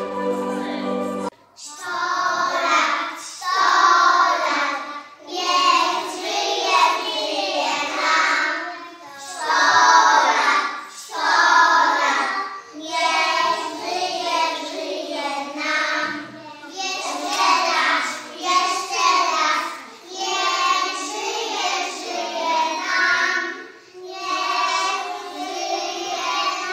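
A brief stretch of recorded instrumental music that cuts off about a second in, then a group of preschool children singing a song together, phrase by phrase with short breaks between lines.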